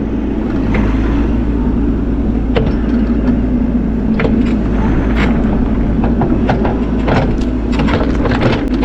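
Bobcat E42 mini excavator's diesel engine running steadily under work, with scattered sharp clicks and cracks over it.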